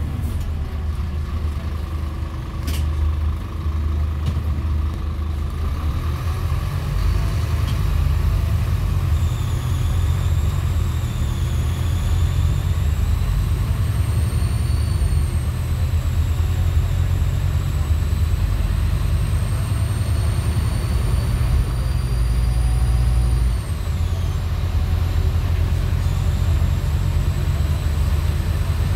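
Scania K280UB city bus's engine droning steadily at highway speed, heard from inside the passenger cabin. From about ten seconds in a thin high whine, taken for turbo noise, slowly rises in pitch, then drops away sharply near the end as the engine sound briefly dips.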